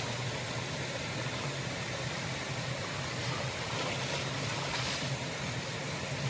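Shallow stream running steadily over stones, with water splashing and pouring off a mesh net as it is lifted out about two-thirds of the way through.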